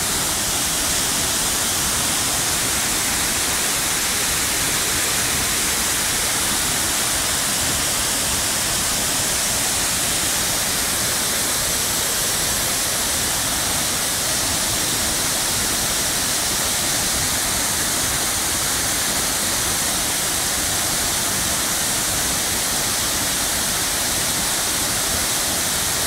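Waterfall thundering close by: a steady, loud rush of falling and splashing water.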